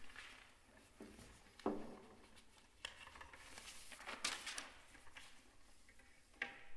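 Faint rustling of sheet-music pages being lifted and set on a music stand, with a few light knocks.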